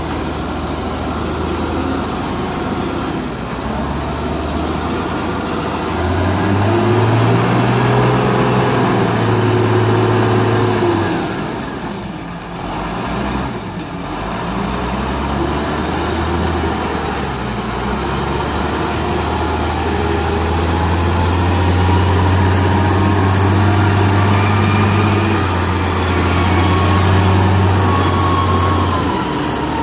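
Engine of a large marina boat-lifting forklift running under load as it carries and raises a cabin cruiser on its forks. The engine speeds up about six seconds in and eases off briefly around twelve seconds. It then holds a steady, higher note until near the end.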